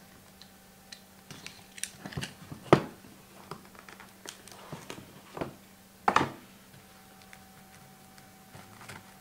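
A cardboard trading-card box being slit open and handled, with the lid lifted and a cased card worked out of its foam insert: scattered light taps and scrapes, with two louder knocks, one a little before a third of the way in and one about two-thirds in.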